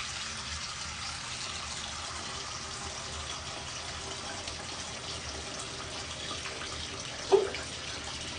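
Tap water running steadily. About seven seconds in, a single short, loud hiccup cuts through it.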